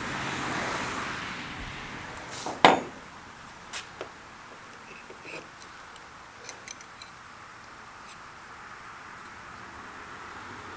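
Small wrench and bent steel axle from a Traxxas X-Maxx RC truck clinking together as the axle is worked to straighten it: one sharp metallic knock a little over two and a half seconds in, then a scattering of light clinks.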